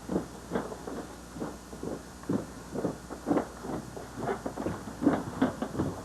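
An uneven series of dull knocks and thumps, two or three a second, over a steady low background rumble.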